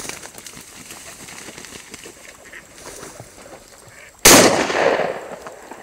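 A single shotgun shot about four seconds in, sudden and loud, with a rolling echo that dies away over about a second.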